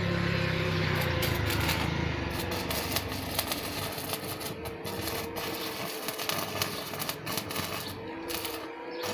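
Stick arc welding: the electrode's arc crackling and sputtering in quick, irregular pops as metal bars are welded together.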